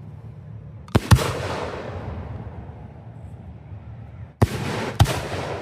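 Fireworks bursting: two sharp bangs close together about a second in, then two more near the end, each pair trailing off in a fading rumble.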